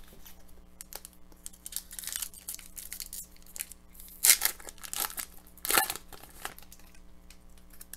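A hockey card pack's wrapper being torn open and crinkled, in several short rips and rustles, the loudest about four and six seconds in.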